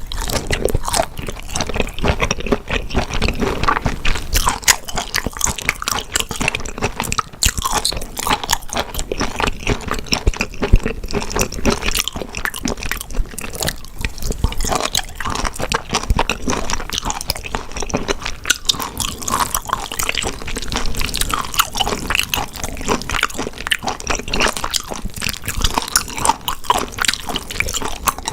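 Close-miked eating: a person chewing and biting, a dense run of wet smacks, squishes and crunches.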